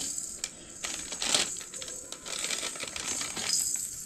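Plastic baby toy rattling and clicking in irregular, rapid bursts as it is shaken or handled.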